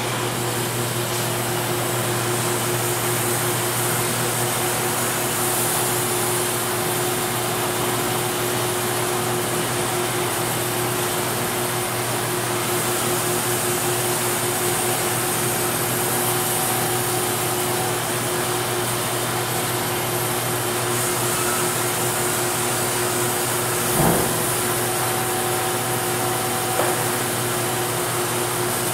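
Sawmill shop machinery running with a steady drone, hum and hiss. A thump about 24 seconds in and a lighter knock a few seconds later.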